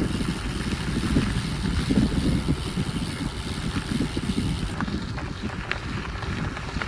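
Wind buffeting the microphone: a steady low rumble that gusts up and down, with faint outdoor background noise.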